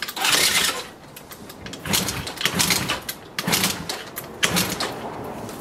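Yamaha Jog CG50 moped's 50cc two-stroke engine being kick-started, about five kicks roughly a second apart, each one turning it over briefly without it catching. The engine will not fire, the sign of the moped's hard-starting fault.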